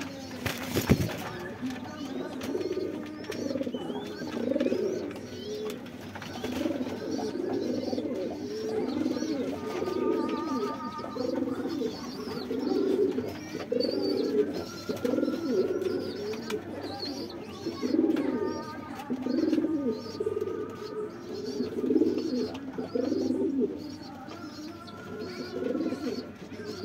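Domestic pigeons cooing over and over, their low calls overlapping, with a sharp click about a second in.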